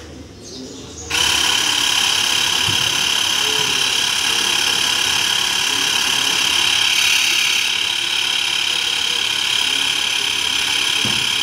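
Xiaomi Mi portable electric air compressor switching on about a second in and running steadily with a high-pitched whine as it pumps air into a two-wheeler tyre.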